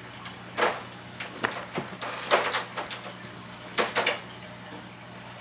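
Hands handling flexible fuel tubing and a small metal breather fitting: several short scrapes and clicks, the loudest about two and a half and four seconds in, over a steady low electrical hum.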